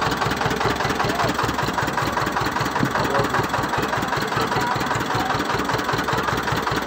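An engine running steadily at idle, with a rapid, even low beat.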